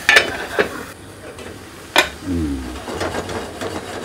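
Metal pot lids and cookware clinking and knocking on a gas stove: a few sharp clanks, the loudest about two seconds in, with lighter clatter after it.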